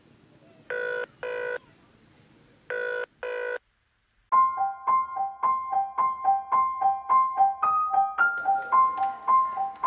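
Telephone ringing tone in the British double-ring pattern, heard as two pairs of short rings: a call ringing out, not yet answered. After a brief silence, light music of quick, evenly spaced keyboard notes starts about four seconds in.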